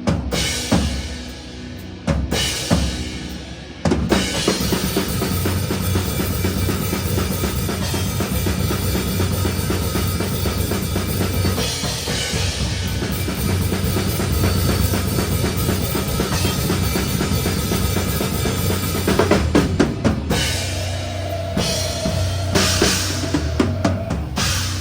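Metal band playing live, heard from a microphone at the drum kit, so the bass drum, snare and cymbals are loudest. The first four seconds are separate accented hits with short gaps, then the band plays continuously, with another short break of single hits about twenty seconds in.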